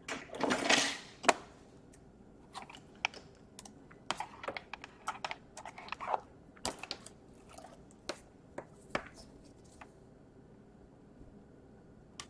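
A brief rustle of handling, then a sharp click and a run of light, irregular plastic clicks and taps as a laptop's case and keyboard are handled and pressed together during reassembly.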